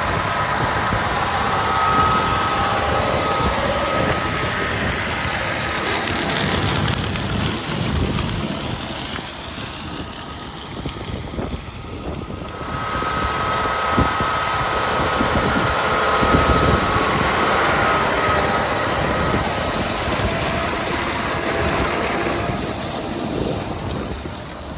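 Large tractor and tractor-pulled sugar beet harvesting machinery running, a steady mechanical noise with a thin high whine that fades out a few seconds in and comes back about halfway through.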